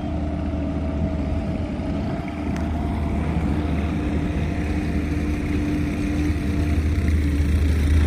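Diesel engine of a compact track loader running steadily at work in the distance, a low rumble with a steady hum that grows a little louder near the end.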